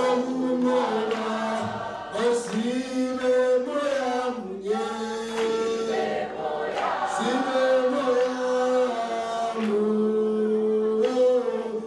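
A group of people singing a song together, with long held notes.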